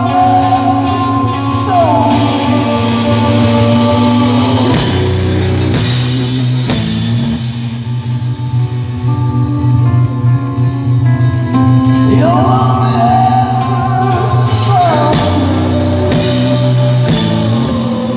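Live rock band playing: electric guitar over a drum kit, with long held notes that slide up and down in pitch.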